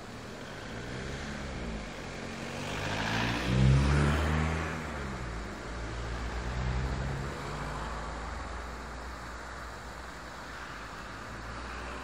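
A motor vehicle passes close by on the road, its engine rising to a peak about four seconds in and then falling in pitch as it moves away. Under it runs the steady hiss of a shallow stream flowing over stones.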